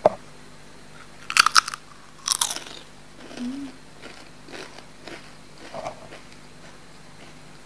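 A person biting into a crunchy Doritos tortilla chip: two loud crunches about one and a half and two and a half seconds in, then softer crunching as it is chewed, dying away after about six seconds.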